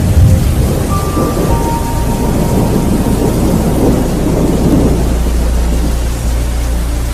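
Recorded thunderstorm: a long roll of thunder over steady rain, fading after about five seconds while the rain carries on.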